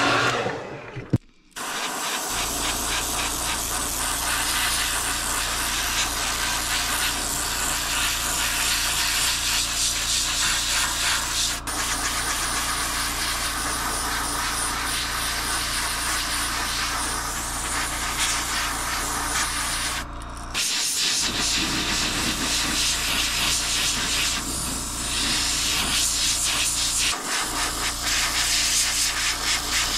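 Airbrush spraying paint: a steady, even hiss of air and paint with a low, constant hum underneath. The hiss starts about two seconds in, after a louder blowing sound cuts off, and drops out briefly twice, once near the middle and once about two-thirds of the way through.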